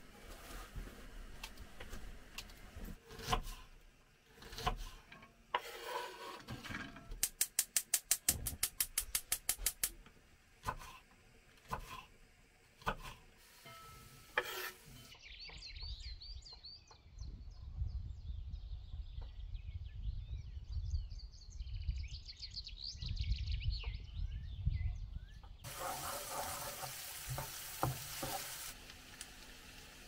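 Kitchen clatter of a knife and utensils on a board and in dishes, with a brisk, even run of taps for about three seconds. Then about ten seconds of birds chirping over a low rumble. Near the end comes a loud hiss of onions, peppers and eggs frying in a pan on a gas stove.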